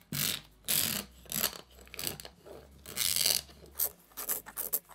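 Metal scraper scraping a resin-printed chainmail sheet off a flexible steel build plate in several strokes, with the crackle and snap of resin supports breaking away.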